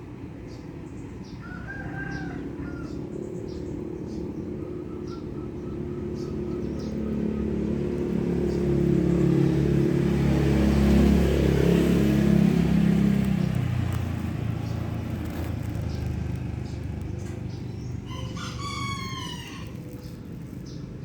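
A motor vehicle's engine passes by, rising and then fading over several seconds, loudest in the middle. Near the end a rooster crows once, with a wavering call of about a second.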